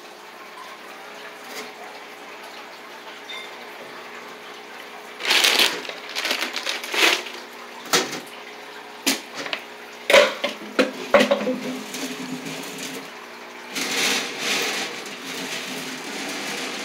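A steady low hum with bursts of rustling and a few sharp knocks.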